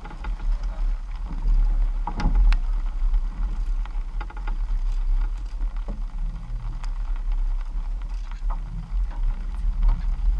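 Low, steady rumble of the boat's outboard engines maneuvering, with water churning around the hull and a couple of sharp knocks about two seconds in.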